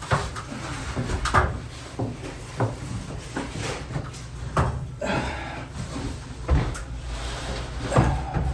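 Irregular knocks and clunks of hard objects being handled and set down during kitchen demolition work, a dozen or so separate sharp hits over a low steady rumble.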